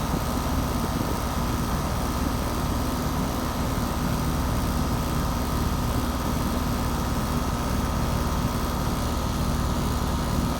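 5-ton heat pump outdoor unit running steadily in cooling mode. Its Copeland scroll compressor gives a low, even hum under the steady rush of the condenser fan.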